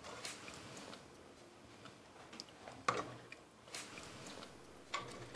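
A few light taps and clicks of a serving spoon against a steel pot and ceramic bowls as risotto is spooned out, with quiet room tone between them.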